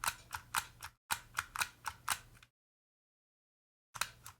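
Vintage Dymo handheld embossing label maker clicking rapidly, about four sharp clicks a second, as its trigger is squeezed repeatedly to advance the label tape through the feed. The clicking cuts off abruptly for over a second, then resumes near the end.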